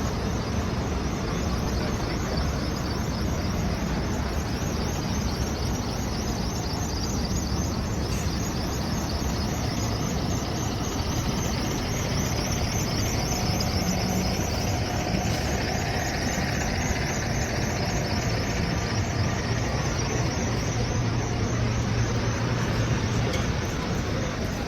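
Street ambience of city traffic: the steady noise of passing cars and trucks, with a low engine hum from a nearby vehicle coming up for a few seconds past the middle.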